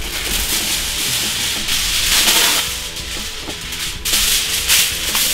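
Aluminum foil being pulled off its roll and handled, with a loud rustling crinkle that is strongest about two seconds in and again near the end. Background music plays underneath.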